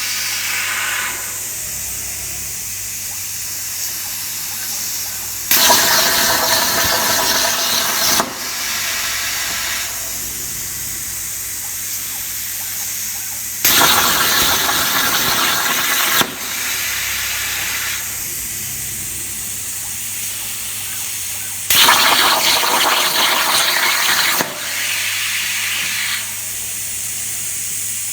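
CNC plasma cutter: a steady air hiss, rising three times to a louder, harsher rush that lasts about two and a half seconds, roughly every eight seconds, as the plasma arc cuts.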